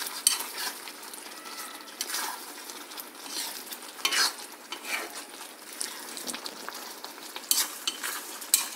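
A steel ladle stirring and scraping chunks of mango in a thick, simmering jaggery syrup in a kadai that is not nonstick, with a steady sizzle under it. The ladle scrapes the pan at irregular moments, every second or two.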